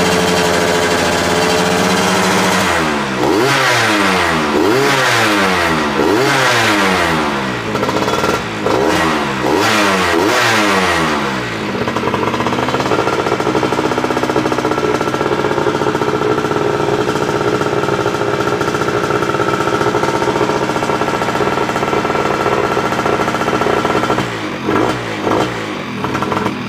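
Yamaha F1ZR two-stroke single-cylinder engine, built to 116 cc for road racing and fitted with a modified exhaust, revved by hand in a string of about six rising and falling throttle blips. It then runs steadily at raised revs, with a few short blips near the end.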